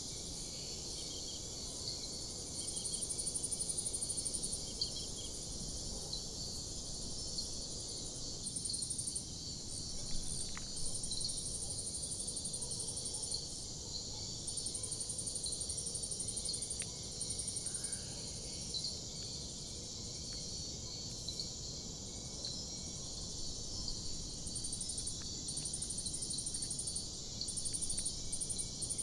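Steady high hiss with high-pitched pulsed trills that start and stop every second or two, and a few faint clicks of a screwdriver fastening motherboard screws into a metal case.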